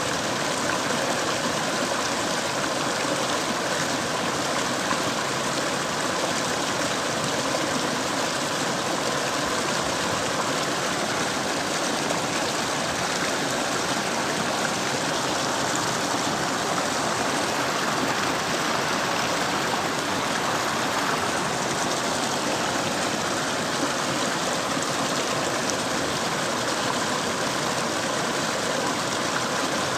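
Mountain river water flowing steadily, an even, unbroken rush.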